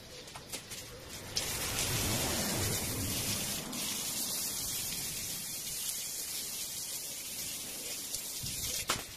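Garden hose spraying water, a steady hiss that starts suddenly about a second and a half in, with a sharp click near the end.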